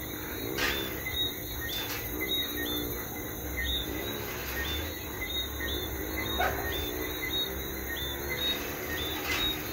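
Night-time chorus of crickets and other insects: a steady high trill with short chirps repeating about twice a second.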